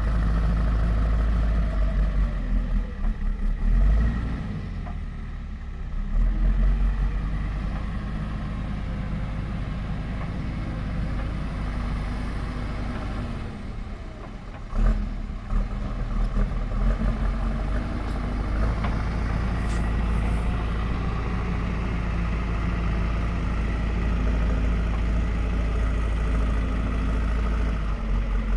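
JCB backhoe loader's Kirloskar diesel engine running, its low engine note swelling louder and easing off several times as the revs change.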